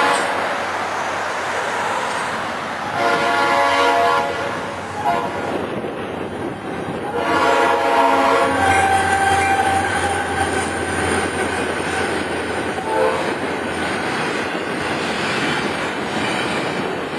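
Diesel freight locomotive's air horn sounding a series of blasts, the warning for a road grade crossing, over the train's rising rumble as it rolls through the crossing.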